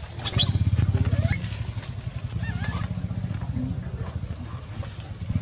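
A baby macaque gives a few short, high squeals that rise and fall in pitch in the first three seconds. Under them a small engine runs with a steady low rumble.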